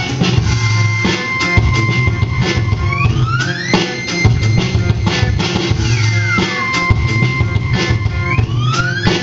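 Live rock band playing: drum kit and electric guitar, with a high held tone that slides up in pitch, back down, and up again.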